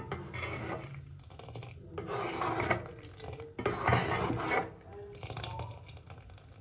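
Steel ladle scraping and clinking against the inside of a steel pot while stirring milky makhana kheer, in three bursts of stirring, then quieter near the end.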